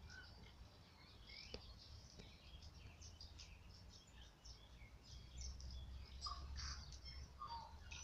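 Faint tui song: a scatter of short, high chirps and clicks with irregular gaps, and a few lower notes near the end.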